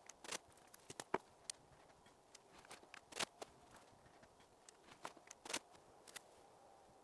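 Faint, scattered clicks and taps from hand work, about a dozen at irregular intervals, the sharpest a little after three seconds and around five and a half seconds.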